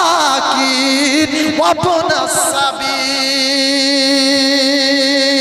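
A man's voice chanting a Quranic verse in melodic recitation style. The pitch winds through wavering, ornamented turns, then holds one long steady note from about three seconds in.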